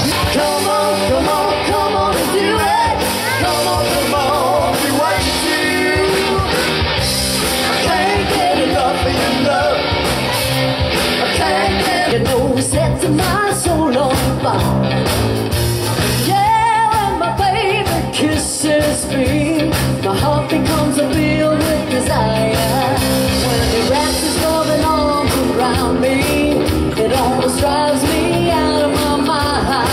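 Rock band playing live, with electric guitars, bass guitar, drums and keyboards, and singing over them.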